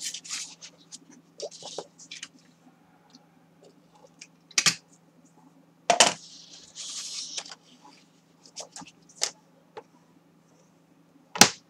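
Sheets of kraft cardstock being handled on a cutting mat: rustling and sliding paper in short stretches, with several sharp taps and clicks as the sheets and tools are set down, the loudest about a second and a half before the end.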